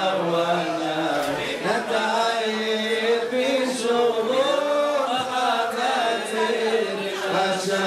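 A man's voice chanting a prayer in slow melodic recitative, holding long notes that waver in pitch.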